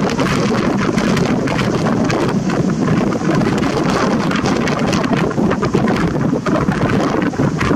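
Wind buffeting the microphone, steady and loud.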